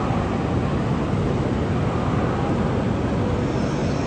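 Steady low rumble and hiss of a large railway station's ambience, with no single event standing out.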